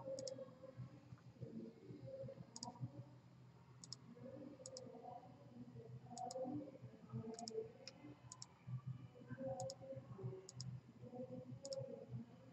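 Computer mouse button clicking about ten times at irregular intervals, each click a short double tick of press and release, over faint low background noise.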